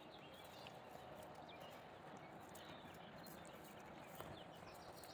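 Near silence: faint outdoor background with a few faint, short, high chirps and one faint click about four seconds in.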